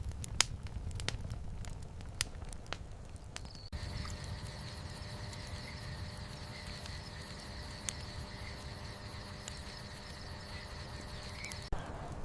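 An outdoor fire crackling with sharp pops over a low rumble, cut about four seconds in to a steady, high-pitched insect drone of crickets or cicadas that runs until near the end, when the crackling returns.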